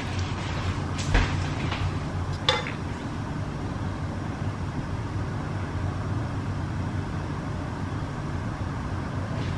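A steady low mechanical hum, with two sharp clinks of cookware, a spoon and frying pan, about one second and two and a half seconds in.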